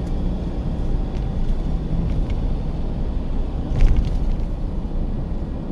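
Car driving along a road: steady low rumble of engine and tyres, with a brief louder knock about four seconds in.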